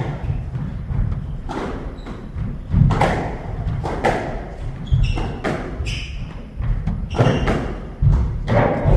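Squash rally: the ball struck by rackets and smacking off the court walls, sharp hits about once a second, with shoes squeaking on the wooden court floor.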